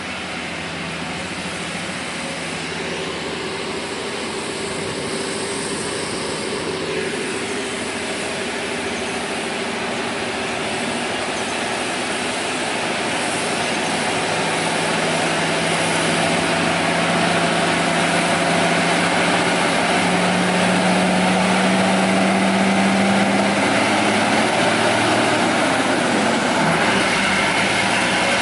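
Heavily loaded log truck's diesel engine labouring up a steep grade, growing steadily louder as it approaches. Its low drone rises a little in pitch about twenty seconds in.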